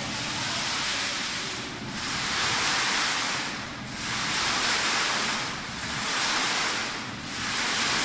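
Water falling from a digital waterfall curtain and splashing into the pool below, a steady rushing hiss that swells and dips about every two seconds.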